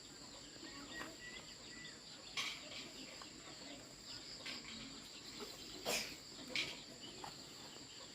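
Faint steady high-pitched insect chirring, with a few sharp clicks or knocks scattered through it, the loudest about six seconds in.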